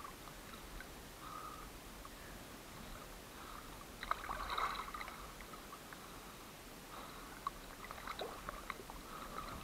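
Small lake waves lapping and splashing against a camera at the water surface, with a burst of sharper splashes about four seconds in.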